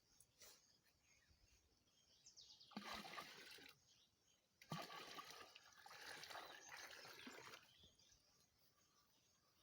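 Stream water splashing and pouring as water is fetched into a container, in two bouts, the second about three seconds long.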